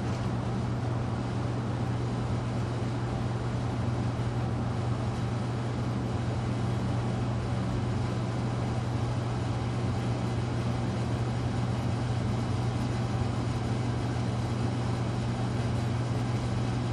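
FASCO Parlour ceiling fan, model 938, running with a steady motor hum and an even rush of air.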